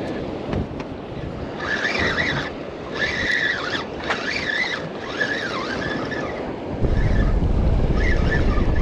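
Wind buffeting the microphone over open water, suddenly much louder with a heavy rumble about seven seconds in. Several high warbling tones, rising and falling, come and go in the first half and once more near the end.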